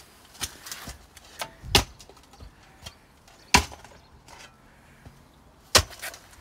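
Spade chopping into stony soil: three loud sharp strikes about two seconds apart, with lighter knocks and scrapes between.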